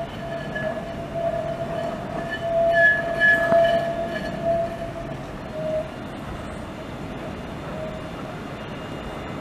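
Alstom Citadis 302 low-floor tram approaching on its track, with a low rumble and a steady, wavering high tone that is loudest about three seconds in and then fades back.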